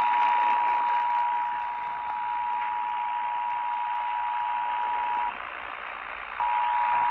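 Emergency Alert System two-tone attention signal received over a noisy AM radio: two steady tones sounding together over a heavy static hiss. The tones drop out for about a second near the end, leaving only the static, then come back.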